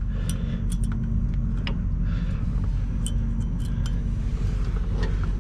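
Scattered light metallic clinks and taps as a brake pad is fitted into a rear disc brake caliper, over a steady low rumble.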